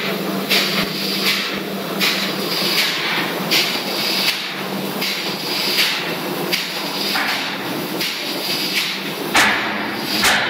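Loud machinery noise: a steady low hum with a hissing pulse repeating about every three-quarters of a second.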